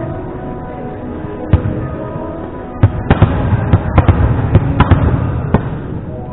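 Sharp smacks of volleyballs being struck and handled in a gym: one a little after a second and a half in, then a quick irregular run of them from about three seconds in to near the end.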